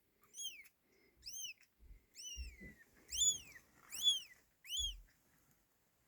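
Newborn kittens mewing: a run of about six short, high-pitched cries, each rising then falling in pitch, one after another less than a second apart.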